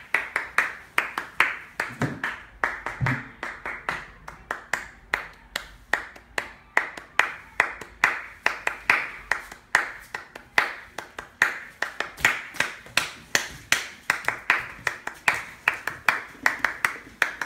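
Hands clapping a steady beat, about three claps a second, keeping time for dancers. There are two low thuds about two and three seconds in.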